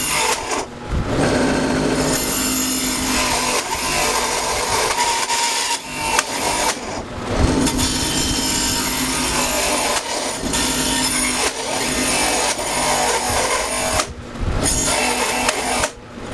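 Power tool cutting into the wood of a 2x4 bowl blank, running loud and steady with a few short breaks in the cut.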